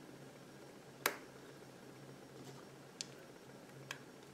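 Small plastic-and-metal clicks: one sharp click about a second in, then two fainter ticks near the end, as small ball bearings are pressed into the pockets of a 3D-printed plastic gear.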